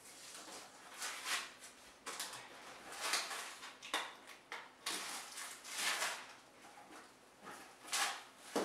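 Scissors cutting through the plastic wrapping of a rolled mattress, the plastic rustling and crinkling in irregular bursts.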